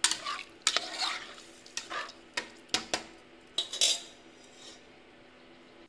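A metal ladle stirs rice and hot water in an aluminium pressure cooker, scraping and knocking against the pot's sides and base in a string of strokes. The stirring stops about four seconds in.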